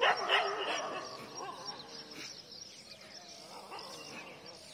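A dog barking, three quick barks in the first second, then quieter.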